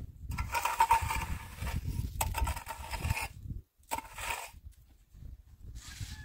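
Steel trowel scraping and smoothing wet cement mortar on a concrete block wall: a long rough scrape of about three seconds with a sharp click partway through, then a shorter scrape about four seconds in.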